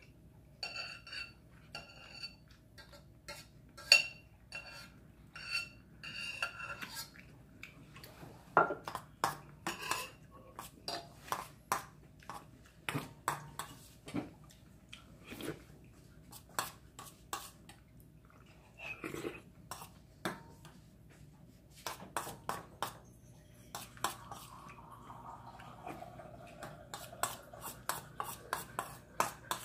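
A metal spoon clinking and scraping against a stainless steel bowl while eating: a long run of sharp clinks, several ringing briefly in the first seven seconds, and a longer scraping sound near the end.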